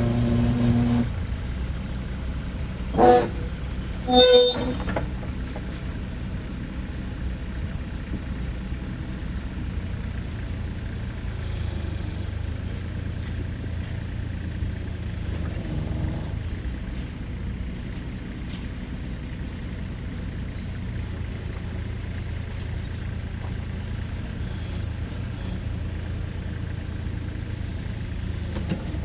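Kubota RX-406E mini excavator's diesel engine running steadily, its note dropping and settling about a second in. Two short horn toots sound about three and four seconds in.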